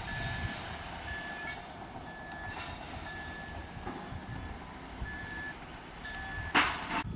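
Reversing alarm on construction machinery beeping steadily, about one half-second beep a second, over a low rumble, with a short loud burst of noise near the end.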